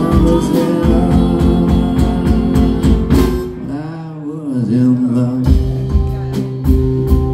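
Live band playing: drum kit, acoustic guitar and singing. The drums drop out about three and a half seconds in, leaving the wavering voice and guitar, and come back in about two seconds later.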